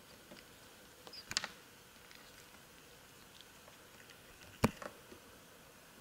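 Faint room hiss with a few small, sharp clicks and taps: a short cluster about a second in and one sharper click about two-thirds of the way through, followed by a few softer ticks.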